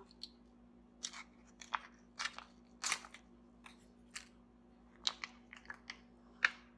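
A tuna packet being torn open and handled: a dozen or so short, sharp crinkles and crunches, unevenly spaced.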